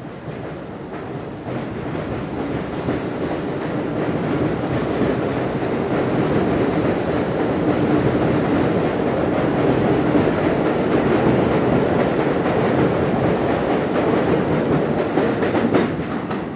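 An R62A subway train pulling out and speeding up past the platform, its motors and wheels growing steadily louder, with a few clacks of the wheels over rail joints near the end. The sound drops off suddenly near the end.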